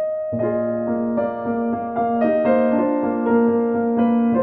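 Background music on a piano-like keyboard: a melody of clear sustained notes over a held low note, changing a few times a second.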